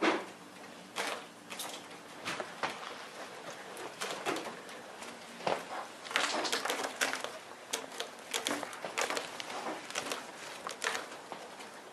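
Irregular soft knocks, clicks and rustles of a small video camera hanging from balloon strings as a cat paws at the strings and the camera swings and bumps. The knocks come thickest in the second half.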